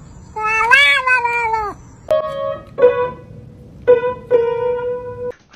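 A cat's long meow, rising then falling in pitch, followed by four short held notes on an electronic keyboard.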